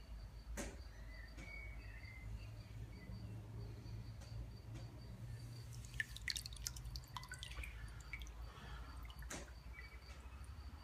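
Faint water dripping and trickling over a steady low rumble, with a cluster of small sharp drips and clicks about six to seven seconds in.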